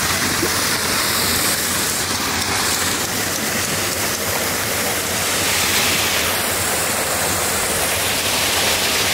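Steady rush of water pouring and splashing into a pool.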